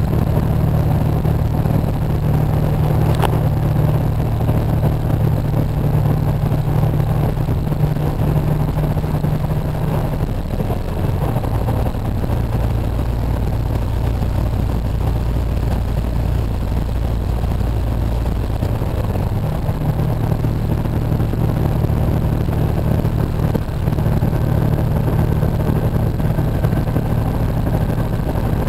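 Semi truck's diesel engine running at highway speed, heard inside the cab with road noise. The engine hum shifts lower for several seconds around the middle, then comes back up.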